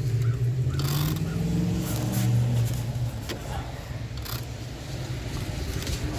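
About six irregular sharp clacks of a 1932 Royal Signet manual typewriter's keys and typebars being tried, over a steady low engine hum that rises in pitch for a moment about a second in.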